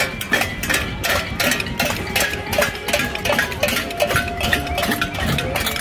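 A crowd of marchers banging on pots and pans: many irregular metallic clangs, several a second and overlapping, with ringing tones between the strikes.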